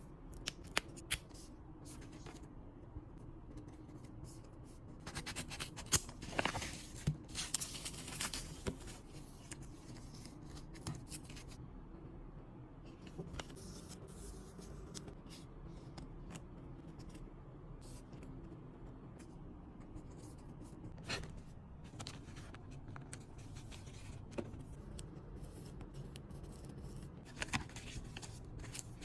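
Hands unwrapping and handling photocard packaging: bursts of rustling and crinkling with scattered small clicks, busiest a few seconds in and again near the end.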